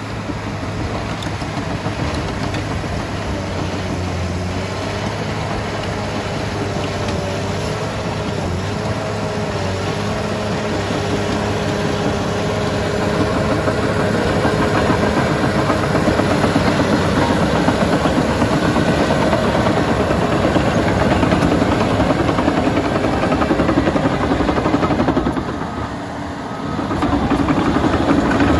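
Caterpillar D5G LGP crawler dozer's six-cylinder turbodiesel running under load as the blade pushes dirt, with a wavering whine over the engine note. The sound grows louder about halfway through, dips briefly near the end, then picks back up.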